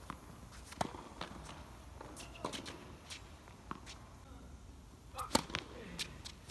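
Tennis rally on a hard court: a string of sharp pops from rackets striking the ball and the ball bouncing, spaced about a second apart, with the loudest hits close together about five seconds in.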